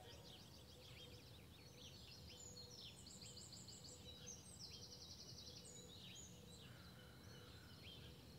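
Faint birdsong from several small birds: many short, falling chirps and a few rapid trills, over a quiet background with a faint steady hum.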